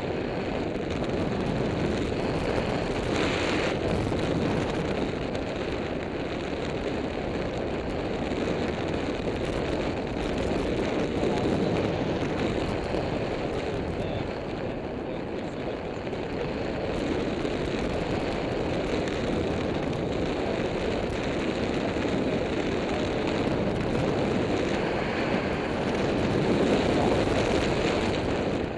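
Airflow buffeting the microphone of a camera on a tandem paraglider in steady glide: a continuous low rush of wind that swells and eases slightly.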